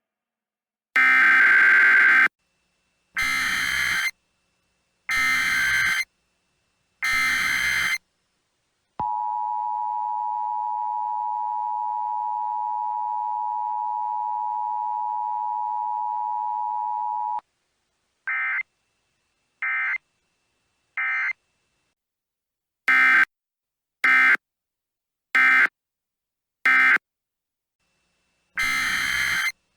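Emergency Alert System tones. Four harsh, screeching digital data bursts about a second each come first, then the steady two-tone attention signal for about eight seconds. After it come three short bursts, four more short bursts, and a further long data burst near the end.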